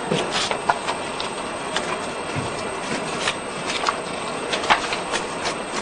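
Irregular light clicks and taps from cels being handled and shot frame by frame on an animation camera stand, over a steady hiss.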